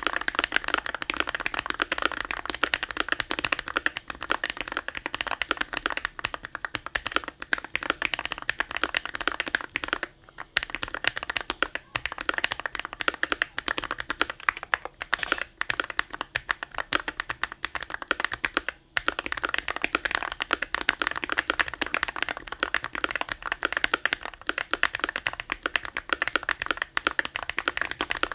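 Fast continuous typing on a GMMK Pro mechanical keyboard modded with painter's tape and cotton, fitted with Krytox-lubed Glorious Panda tactile switches and Glorious Aura V2 keycaps. The keystrokes follow one another rapidly, with brief pauses twice.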